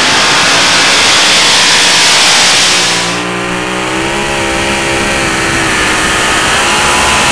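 Supercharged engine of a super modified two-wheel-drive pulling truck running at full throttle as it drags a pulling sled. About three seconds in the sound turns less hissy and the engine's pitch stands out, sagging under the load and then climbing again near the end.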